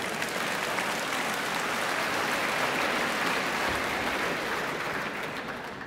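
Concert-hall audience applauding, the clapping swelling a little and then thinning out near the end.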